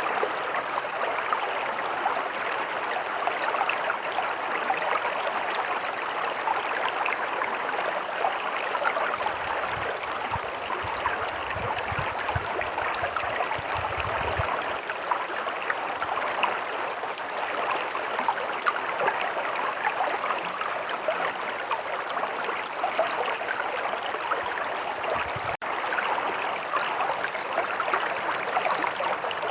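A stream running, a steady rushing babble of water. About a third of the way in, a few seconds of low rumble join it, and near the end the sound drops out for an instant.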